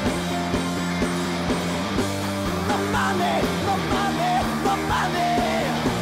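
Rock band playing live: electric guitar and bass over a steady drum beat of about two hits a second, with a singer's voice coming in about halfway through.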